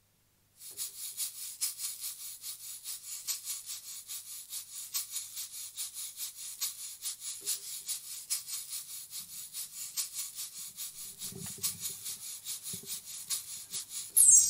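Metal tube shaker shaken in a quick, even rhythm, giving a dry, hissing rattle. Near the end, much louder music cuts in.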